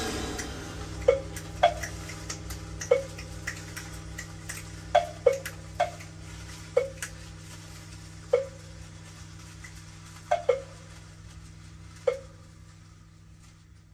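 Percussion ensemble's rain effect dying away: about a dozen isolated drop-like plinks, each short with a brief ring, coming more and more sparsely, over a low steady hum that slowly fades.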